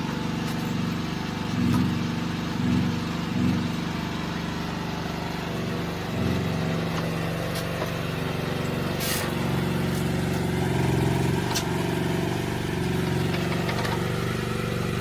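Mini excavator's small engine running steadily, rising briefly three times in the first few seconds as if under load.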